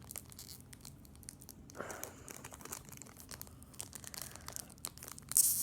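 Crinkling and rustling of a foil Pokémon booster pack being handled, with irregular small crackles and a brighter crackle near the end.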